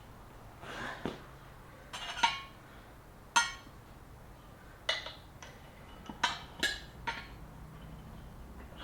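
Metal tyre levers clinking and knocking against a motorcycle wheel rim while a tyre is being levered onto it: about seven sharp, ringing clinks at irregular intervals, with a low steady hum underneath.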